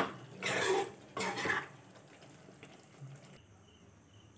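Steel spoon stirring thick chicken curry gravy in a non-stick kadai: a click and then two short scraping strokes in the first second and a half, then quiet.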